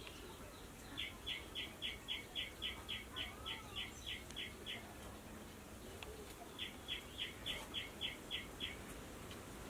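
A bird calling in quick runs of short, high chirps, about four a second: a run of around fifteen from about a second in, and another of about eight near the end.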